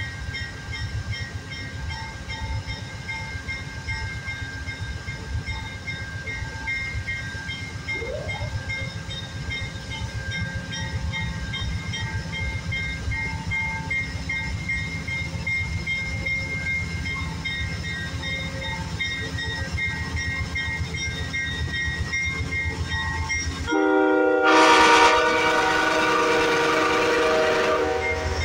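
An Amtrak GE Genesis diesel locomotive pulls out with a steady low engine rumble that slowly grows louder. About 24 s in it sounds its horn, one long multi-tone blast of about four seconds, the loudest sound here.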